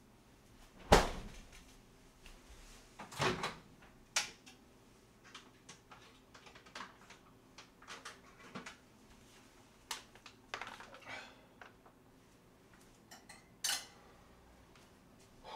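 Scattered knocks, clicks and bumps of things being handled in a kitchen: cupboard or drawer doors and food packets being moved and set down on the counter. A few louder knocks come about one, three and four seconds in and again near the end.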